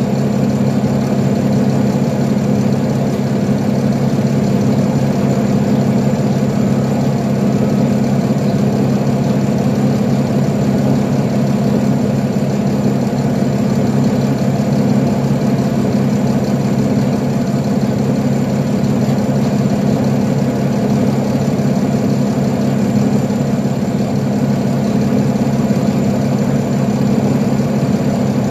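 The engine of a 2012 Nova Bus LFS articulated city bus running steadily, heard from inside the passenger cabin, a low drone that neither rises nor falls.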